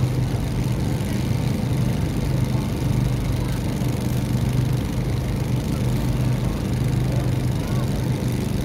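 Steady low hum of an engine or motor running, even and unbroken.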